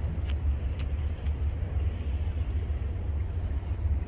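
Wind buffeting the microphone: a steady low rumble that rises and falls, with a few faint ticks in the first second and a half.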